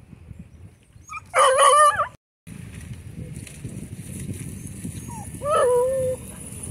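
A dog giving two drawn-out barks with bending pitch, one about a second and a half in and another about five and a half seconds in, with wind noise on the microphone behind the second.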